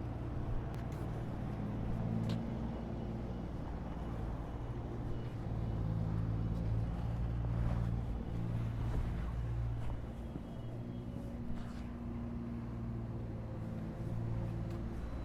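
Motor vehicles running nearby: a steady low hum whose pitch shifts every second or two, with a few faint clicks.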